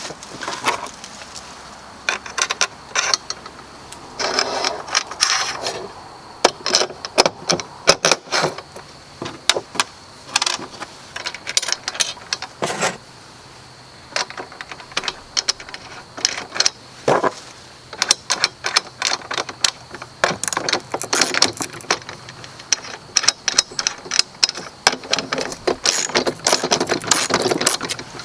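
Irregular metallic clinks, clicks and rattles of chainsaw mill hardware being handled: carriage bolts, flat washers and nylon lock nuts being fitted and run down on the steel frame.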